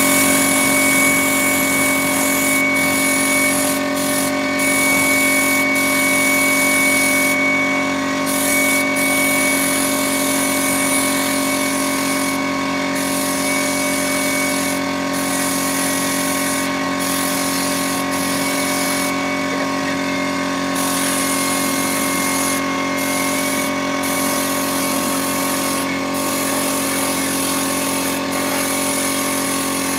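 Air spray gun hissing as it sprays wood polish, the hiss breaking off briefly several times, over the steady hum of the air compressor running.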